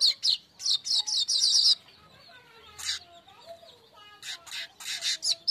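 Streaked weaver (manyar kembang) song: a quick run of sharp, high chirps in the first couple of seconds, a single chirp about three seconds in, and another run of chirps near the end.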